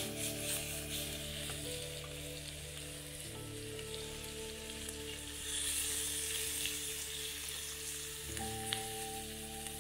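Chanterelle mushrooms sizzling and frying in a steel frying pan over a campfire, with the pan being tossed, under soft sustained background music chords that change every few seconds. A single light tap near the end.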